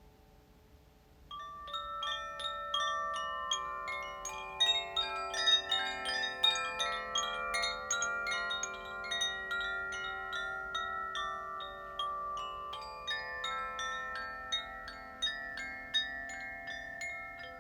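Koshi chimes in the water and earth element tunings, swaying so the clapper strikes the tuned rods in a fast, random cascade of overlapping ringing tones. The strikes begin about a second in, after a faint fading ring.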